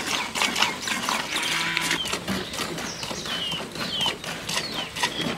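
Milk squirting into a plastic bucket as a cow is milked by hand, a steady rhythm of about three spurts a second. Small birds chirp in the background from about two seconds in.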